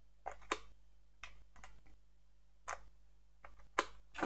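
Faint, irregular light clicks, about eight of them, from a Mercedes W211 key being worked in its electronic ignition switch (EIS) on a bench rig, over a low steady electrical hum.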